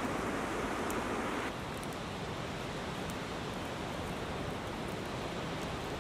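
Swedish fire torch, a split birch log burning from the top, giving a steady rushing of flame with a few faint crackles. It turns a little quieter about one and a half seconds in.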